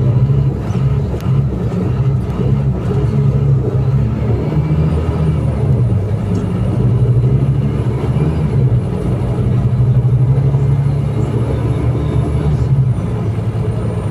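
Scania K310IA bus's diesel engine running steadily, its low note swelling and easing slightly, with a faint high whine in the middle.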